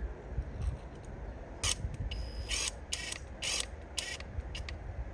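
Ratchet wrench clicking in about five short bursts as bolts are run in and tightened, over a steady low background rumble.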